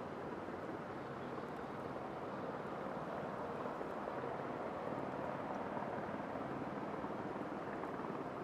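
Distant jet engine noise from a Boeing 737-800's CFM56 turbofans: a steady rumble that grows slightly louder partway through.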